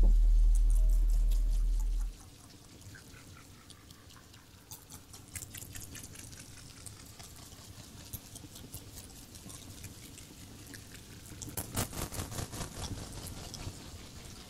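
A deep, loud drone cuts off abruptly about two seconds in, leaving faint scattered clicks and crackles like dripping or pattering, which thicken near the end.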